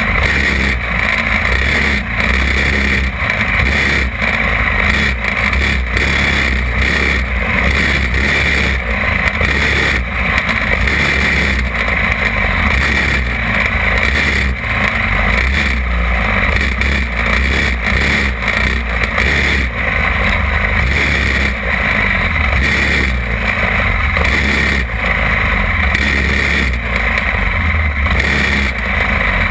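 Champ buggy go-kart engine running hard, recorded onboard the kart, its sound swelling and dipping over and over as it races around the track.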